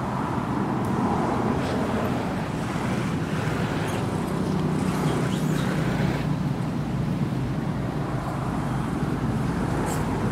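Steady outdoor background noise: a low, even hum with a windy hiss over it.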